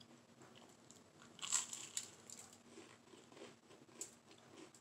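Crunchy toasted bread with butter and sugar being bitten and chewed. There is a loud crunch about one and a half seconds in, then softer chewing crunches and a sharp crunch near the end.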